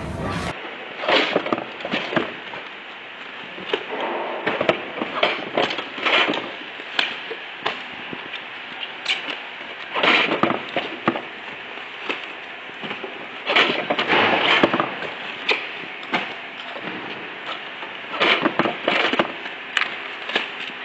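Irregular clattering knocks and scrapes of apples being handled rapidly on a metal rack. They come in clusters with quieter stretches between.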